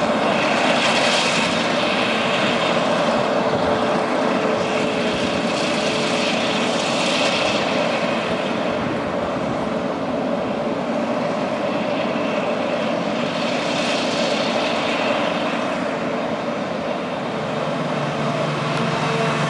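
Claas Jaguar 970 self-propelled forage harvester chopping wheat for silage, its engine and chopping drum running steadily under load with a constant whine, together with the tractor hauling the trailer alongside. A rushing hiss swells and fades a few times.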